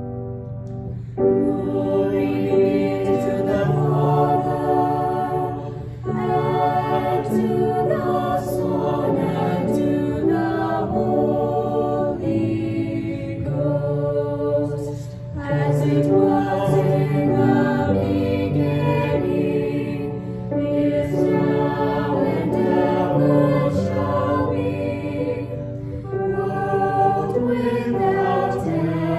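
A choir sings a hymn with piano accompaniment. The singing comes in about a second in, after a short piano lead-in, and goes on in phrases of a few seconds each.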